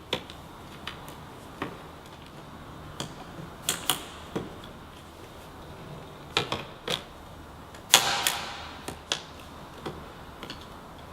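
Irregular sharp clicks and light plastic knocks as screws are refitted into a car's plastic cowl cover, with a louder clatter about eight seconds in.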